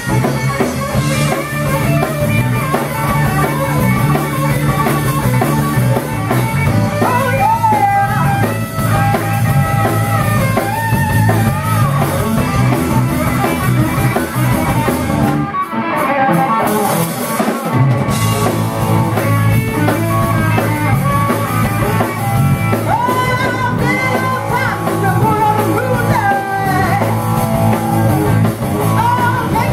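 Live rock'n'roll band playing: electric guitar, electric bass and a Gretsch drum kit, with a woman singing. About halfway through, the bass and low drums drop out for about two seconds, then come back in.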